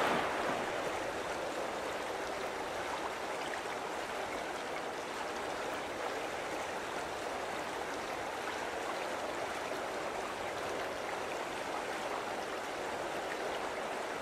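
Steady wash of moving water, an even rushing with no pitch or rhythm.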